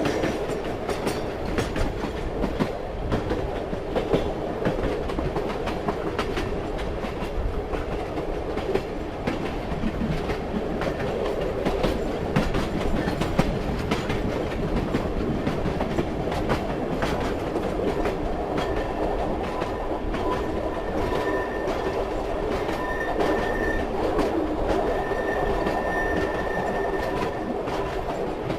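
Train running along the track: a steady rumble with irregular clicking of the wheels over the rail joints. In the second half a faint high wheel whine comes and goes.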